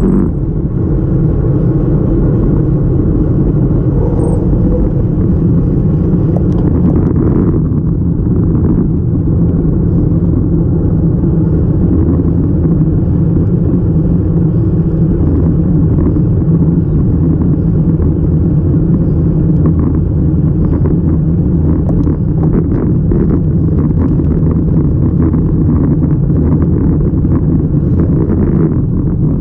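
Steady low rumble of a road bike's tyres rolling on asphalt, mixed with wind buffeting the bike-mounted action camera as it moves.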